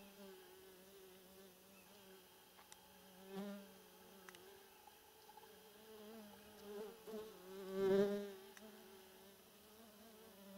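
A flying insect buzzing around the microphone: a steady wingbeat hum that swells loudly as it passes close, once about three and a half seconds in and again, loudest, around eight seconds.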